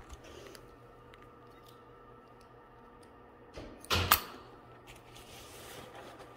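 Quiet room tone broken about four seconds in by a short rustle and clack as the leash handle is gripped close to the microphone.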